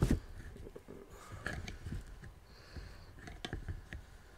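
Handling noise from a camera being readjusted: a sharp knock at the start, then scattered clicks, taps and light rustles.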